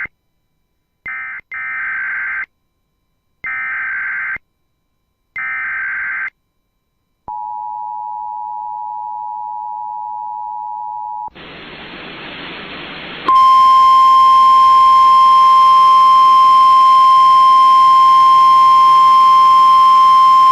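Emergency Alert System SAME header bursts, short raspy digital warbles, in the first six seconds. Then the two-tone EAS attention signal sounds for about four seconds, a couple of seconds of radio static follows, and from about two-thirds of the way in comes the loud, steady single-tone NOAA Weather Radio warning alarm that heralds a new alert.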